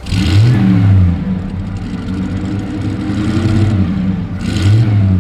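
Bugatti Type 57's straight-eight engine running and being revved: a rise and fall in revs near the start, steady running, then a second quick blip near the end.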